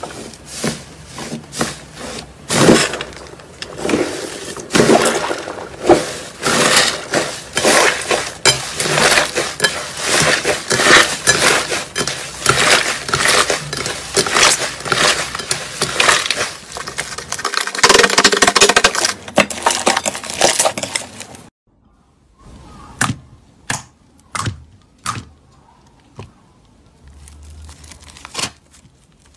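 Hands pressing and kneading a thick, air-filled fluffy slime, giving a dense run of crackling, popping and squelching as the trapped air escapes. About 21 seconds in it changes to a glossy slime, with only scattered sticky pops and clicks.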